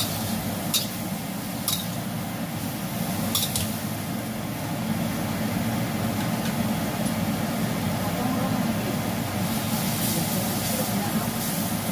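Broccoli and shrimp sizzling in a steel wok, with a metal spatula clinking against the pan three times in the first few seconds, over a steady low hum.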